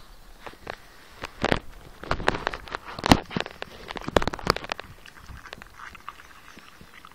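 Spitz puppy digging in a grass lawn with its front paws: a quick run of scratching and scuffing in the soil and grass, densest from about one and a half to five seconds in, then dying down.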